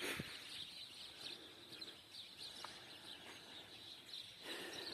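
Faint chirping of small birds over a low outdoor hiss, the chirps short and scattered.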